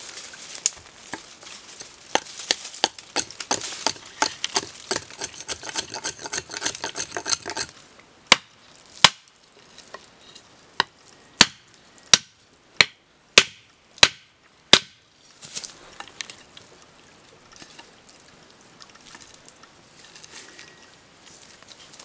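Green bamboo being cut with a curved knife against a log: first a quick run of light, rapid strokes, then about nine sharp, loud chops a little over half a second apart, then faint rustling and handling.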